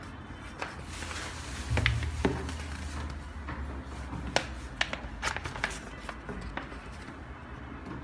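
Paper wrapping inside a shoe box being handled and unfolded, rustling and crinkling with a run of sharp crackles and taps, over a low rumble from handling.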